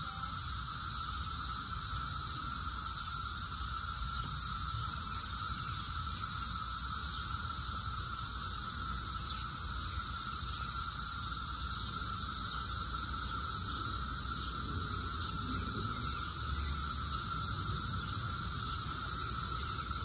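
Chorus of Brood X periodic cicadas: a steady, unbroken drone on one pitch with a louder, higher hiss above it.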